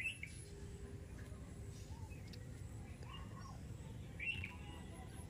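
Outdoor ambience with a steady low rumble, broken by short bird chirps: one sharp call right at the start and another about four seconds in, with a few fainter calls between.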